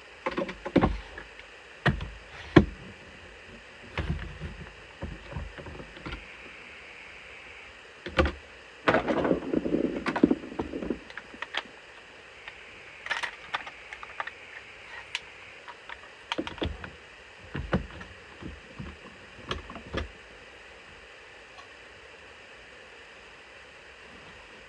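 Workshop handling noises from heated sheath material being worked with tools and a mold: a run of irregular knocks and clacks, with a louder scraping, rustling stretch lasting about two seconds near the middle.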